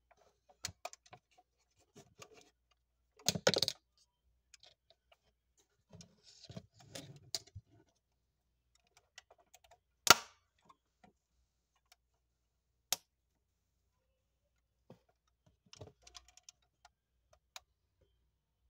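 Clicks and small knocks as a 1:18 scale model Audi A6L is handled and its opening doors are worked. There is a quick cluster of clatter a few seconds in and one sharp click about halfway through.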